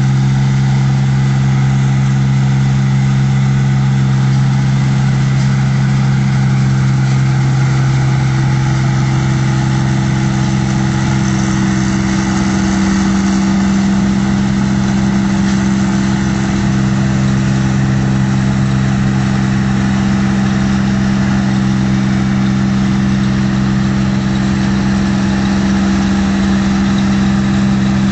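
New Holland 8060 rice combine harvester running steadily as it crawls on its tracks through a muddy paddy field. Its engine gives an unbroken, even drone with a constant low hum.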